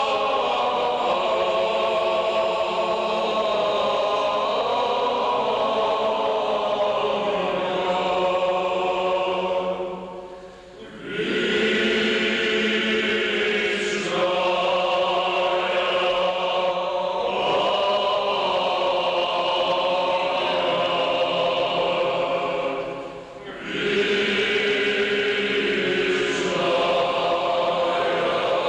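Male choir singing in long, sustained chords, with a brief break between phrases about ten seconds in and again about twenty-three seconds in.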